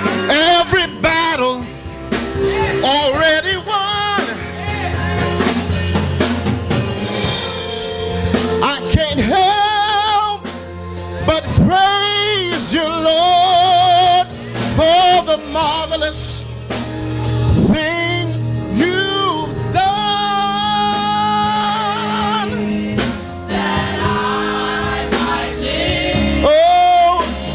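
Live gospel song: a lead vocalist sings long, sliding, wavering runs and held notes over sustained keyboard chords and bass.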